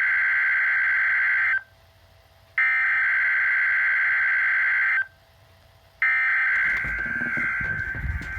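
NOAA Weather Radio Emergency Alert System digital header (SAME) sent three times: three bursts of a steady, buzzy data tone, each about two seconds long with a gap of about a second between them. A low rumbling noise comes in during the third burst, which fades away near the end.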